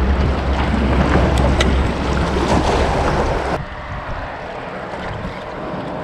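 Wind buffeting the microphone over the wash of waves against the jetty rocks. The wind rumble cuts off sharply about three and a half seconds in, leaving a quieter wash of water.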